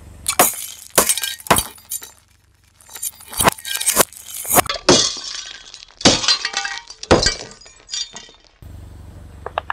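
Brittle objects cracking and crunching under a car tyre: a string of sharp breaks, a dozen or so, with a short lull after about two seconds.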